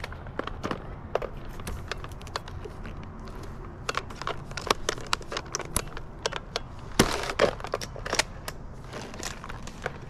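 Irregular sharp snaps, clicks and crackles from handling in a dead birch tree: dry twigs and bark breaking and gear knocking as the climber moves about, with the loudest cluster of cracks about seven seconds in. No chainsaw is running.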